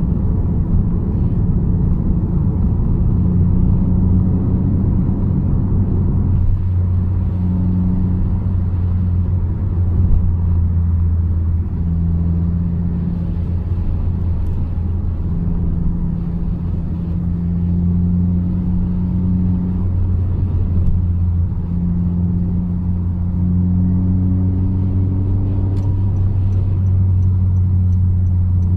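Car driving: steady low engine and road rumble, with a hum above it that drops out and shifts in pitch every few seconds.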